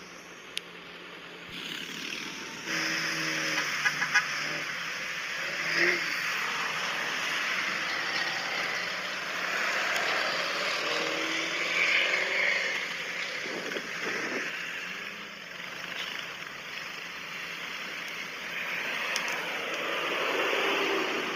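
Off-road pickup trucks, Jeeps and a quad driving past one after another on beach sand, their engines running under a steady hiss. The vehicle noise grows louder about two and a half seconds in.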